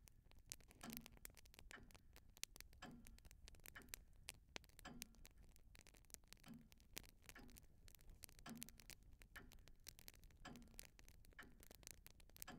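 Faint, regular ticking with a soft low knock about every two seconds and light clicks in between, like a slow clock.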